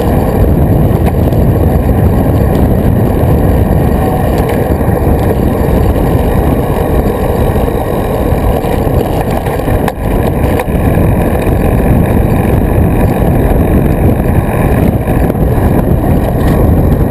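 Wind buffeting the microphone of a camera mounted on a road bicycle moving at speed: a loud, steady, low rush with no engine or voice in it. A single click cuts through it about ten seconds in.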